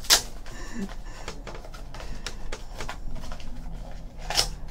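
A small stack of baseball trading cards being handled: cards sliding and rustling against each other, with light clicks and a sharper tap at the start and another near the end.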